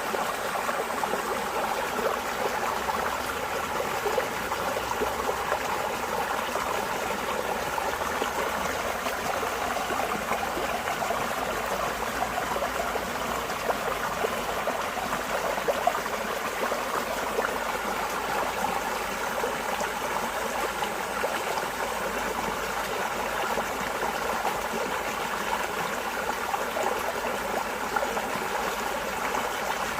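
Running water flowing steadily, a continuous rushing noise with small irregular splashes.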